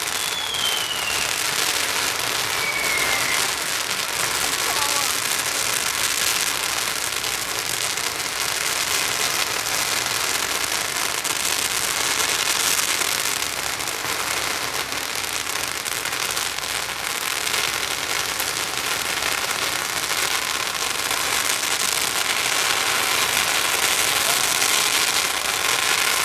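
A long string of firecrackers going off in a dense, unbroken crackle of rapid small bangs.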